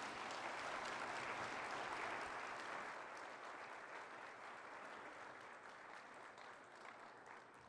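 Audience applauding, strongest in the first couple of seconds, then fading gradually.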